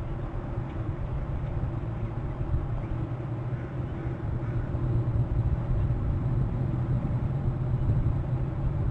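Steady low rumbling outdoor noise with no distinct events.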